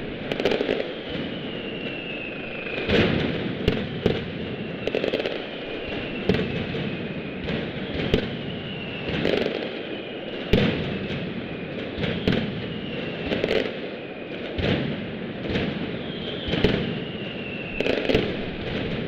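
Mascletà firecracker barrage, with loud bangs about once a second over a continuous crackle. Between the bangs come whistles that each fall in pitch over about a second.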